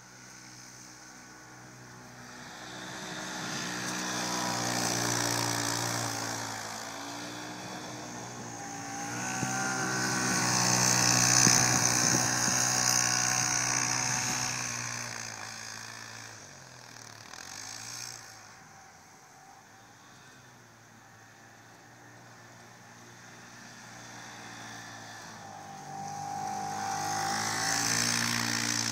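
Polaris Sportsman ACE UTV engine revving up and down as it drives and spins through deep snow, its pitch rising and falling with the throttle. It grows louder and fades several times as the machine circles nearer and farther, loudest a little before the middle.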